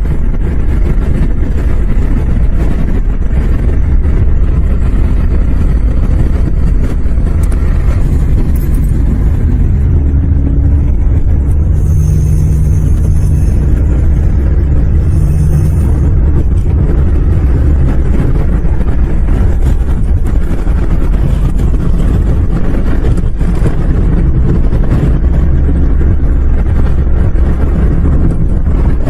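Car driving along: a loud, steady low rumble of engine and road noise.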